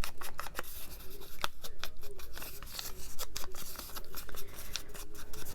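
Scissors snipping through paper in a run of quick, irregular cuts.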